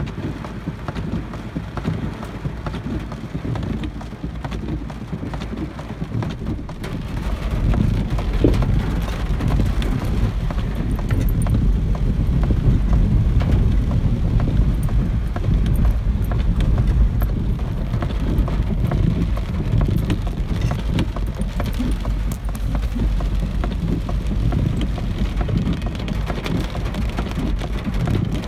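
Rain on a moving car heard from inside the cabin, mixed with a low road and engine rumble; it grows louder about seven seconds in.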